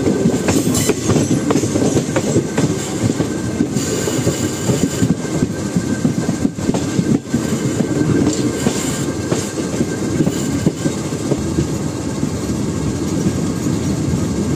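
Moving passenger train, heard from its coach: a steady rumble of wheels running on the rails, with a few sharp knocks from the track.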